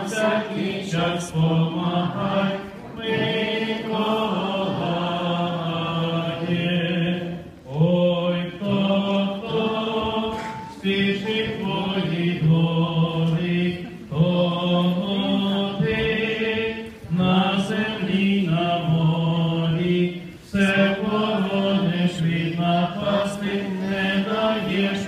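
A group of voices singing a church hymn together, in held phrases of a few seconds with short breaks between them.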